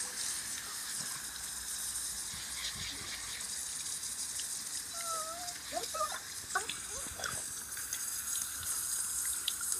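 Garden hose spraying a jet of water in a steady hiss while a dog bites at the spray, with small clicks and a few short squeaks near the middle.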